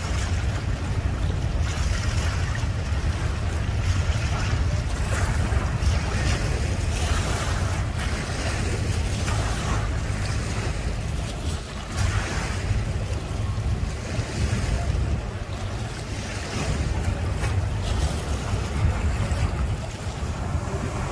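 Wind buffeting the microphone as an uneven low rumble, over the running of outboard boat motors and water at the dock.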